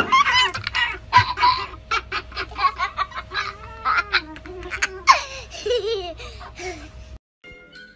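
Laughter in quick repeated bursts, stopping abruptly about seven seconds in.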